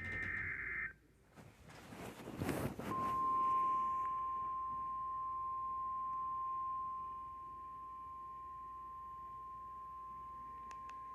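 NOAA Weather Radio 1050 Hz warning alert tone: a single steady high beep starting about three seconds in and held to the end, announcing a warning broadcast. Before it, a brief burst of digital SAME data tones and a couple of seconds of radio static.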